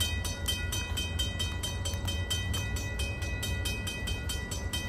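Mechanical level-crossing bell (Griswold/RACO type) ringing in rapid, evenly spaced strokes, about five a second, as the crossing signals activate and the gates lower for an approaching train. A low steady rumble lies underneath.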